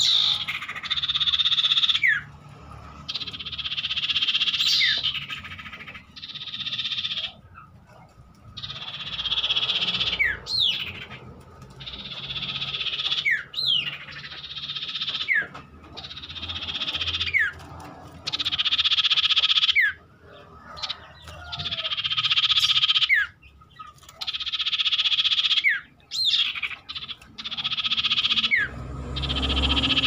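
Common iora (cipoh) singing: a steady run of long, buzzy trilled phrases, each about one to two seconds long and often ending in a quick falling note, with short pauses between them.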